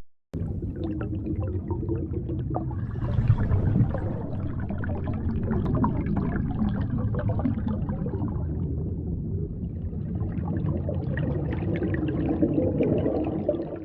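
Edited, fictional whale shark sound effect: a steady watery gurgling rumble with faint low droning tones underneath. It begins after a moment of silence.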